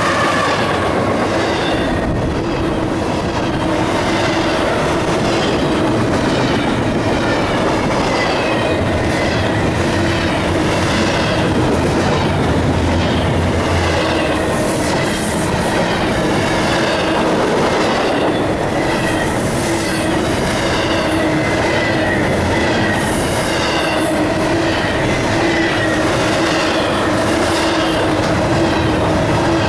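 CSX double-stack intermodal freight train rolling past close by: the trailing locomotive goes by at the start, then the steel wheels of the well cars click over the rail joints in a regular rhythm over a steady rumble, with a steady wheel squeal throughout.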